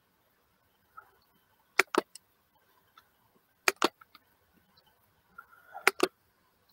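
Computer mouse button double-clicked three times, about two seconds apart, each pair a quick sharp click-click.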